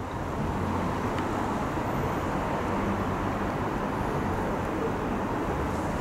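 Steady rumbling vehicle noise with a low hum.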